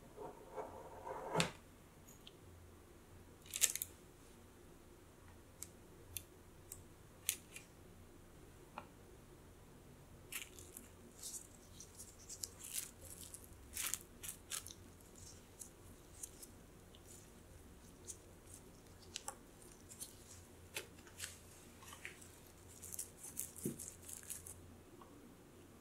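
A knife slicing through a log of icebox cookie dough at the start. This is followed by scattered crisp crackles of plastic wrap being crinkled as the dough is pressed and rolled on it, busiest from about ten to fifteen seconds in and again near the end.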